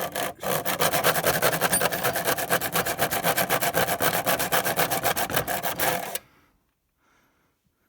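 Saw cutting through a plastic router housing in rapid, even back-and-forth strokes, stopping about six seconds in.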